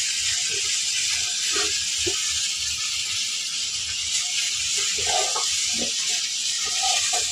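Steady sizzling hiss of food cooking in a pan on the fire, with a few faint soft sounds over it.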